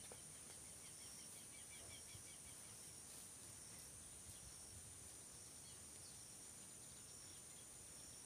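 Near silence with a faint, steady high insect drone and a few brief bird chirps.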